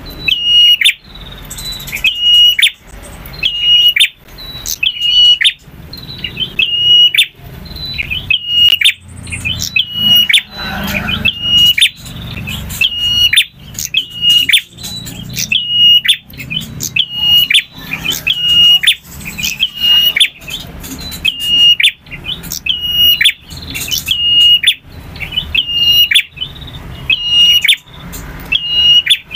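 Male prenjak (prinia) singing loudly: a sharp, ringing call repeated in a steady rhythm about once a second.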